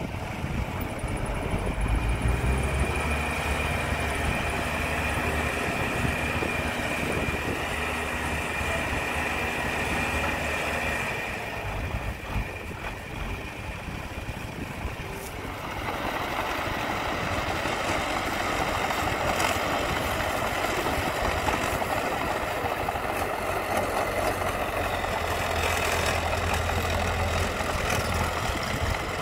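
A dump truck's diesel engine runs with a steady high whine as the bed tips and unloads soil. Partway through, the sound changes to a small crawler bulldozer's diesel engine running.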